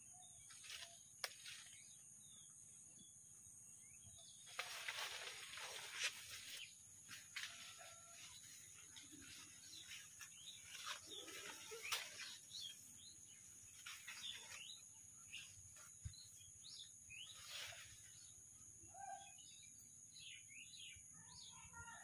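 Leaves and branches rustling in irregular bursts as a person pushes through dense bushes, the loudest about five seconds in. Birds chirp faintly over a steady high hiss.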